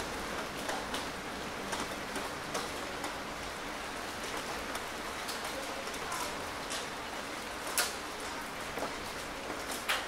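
Steady rain: an even hiss with scattered sharp drop hits, one louder hit about eight seconds in.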